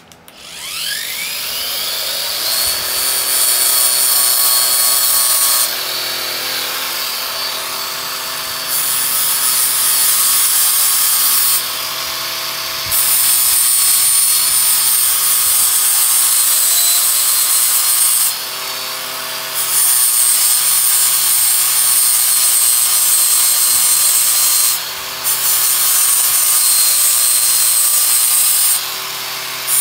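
Handheld electric sander starting up, its motor whine rising over the first couple of seconds, then running steadily while sanding a wooden guitar neck. The gritty sanding hiss dips briefly about every six seconds.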